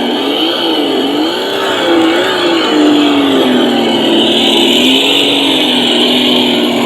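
Simulated engine sound of an MN99S Land Rover Defender RC car, its pitch rising and falling several times as the throttle is worked, then settling to a steady lower note about halfway through. A steady high hiss runs under it.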